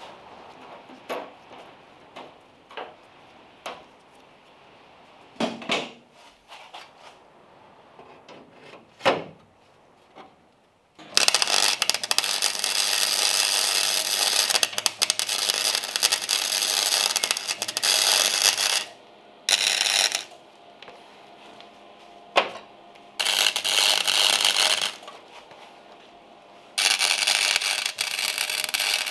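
MIG welder welding a new steel outer wheel-arch repair panel into the car body, in four runs: a long one of about seven seconds, then a brief one and two of a few seconds each. Before the first run, light scattered clicks and taps as the clamped panel is handled.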